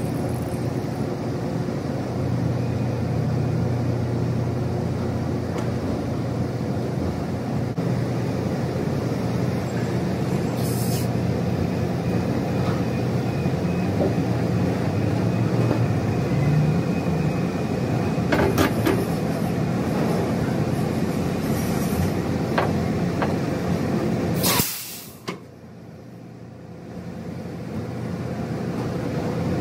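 Semi-truck diesel engine running steadily as the tractor-trailer backs up, with a few short air hisses. About 25 seconds in comes a loud, sharp air-brake hiss, the parking brake being set, and the engine sound drops away right after it.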